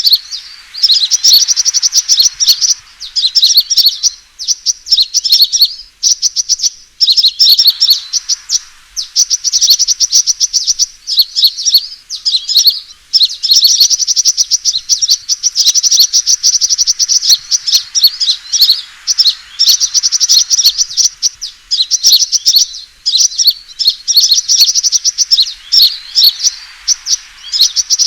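Sunbird fighting call used as a bird-trapping lure: rapid, high-pitched chirping trills in bursts of one to three seconds with short breaks, repeating over and over.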